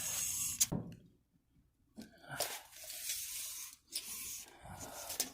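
Rasping, scraping handling noise in three stretches with a short quiet gap: a tape measure being drawn out and laid along a long torque wrench to measure it.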